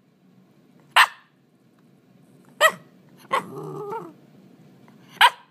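Eight-month-old Shiba Inu barking: four short, sharp single barks spaced a second or more apart. The third bark, about three and a half seconds in, runs on into a brief low growl.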